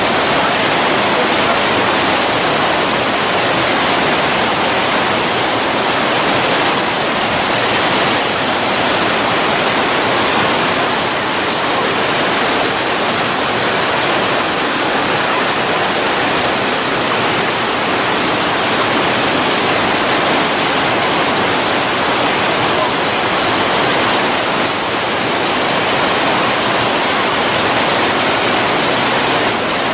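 Rushing water of small waterfalls cascading over rock ledges into pools: a steady, loud rush.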